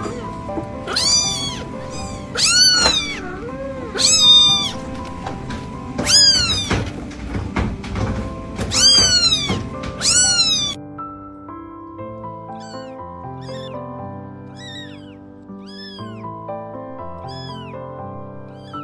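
Kittens meowing over background music. About seven loud, arching meows come in the first ten seconds over a rough noisy background. Then, after an abrupt change, a run of fainter, higher meows about once a second sounds over the music.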